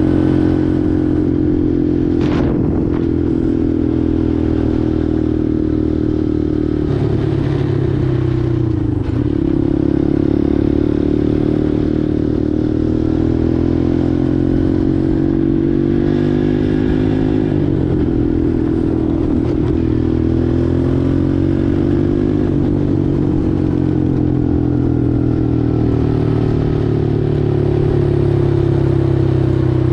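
Four-wheeler (ATV) engine running steadily while riding. Its pitch dips and climbs back three times as the throttle eases and picks up again, under a light rattle, with one sharp click a couple of seconds in.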